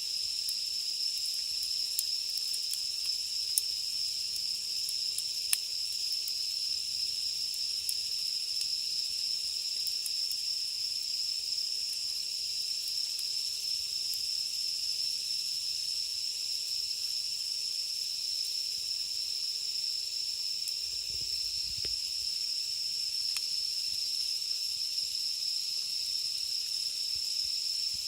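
Steady, shrill chorus of cicadas, with a few scattered faint crackles and ticks from a campfire's burning wood and charcoal.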